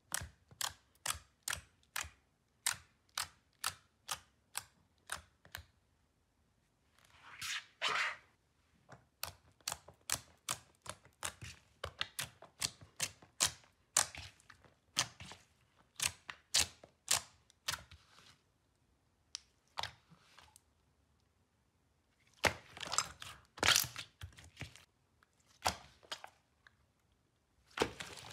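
Hands pressing, poking and kneading clear glossy slime, giving a run of sharp pops and clicks at about two to three a second. There are two longer crackling stretches, one about seven seconds in and one about twenty-two seconds in.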